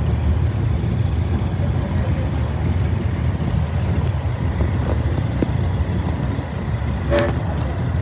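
Steady low engine rumble as an antique Silver King tractor, pulling a cultivator, drives slowly past close by. A brief horn toot sounds about seven seconds in.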